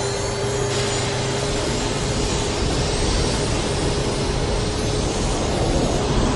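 The twin MiG-21 jet engines of the Big Wind well-fire extinguisher running at full throttle, blasting water-laced exhaust at a burning oil well. A loud, steady rushing noise, with a steady mid-pitched tone that holds for most of it and fades near the end.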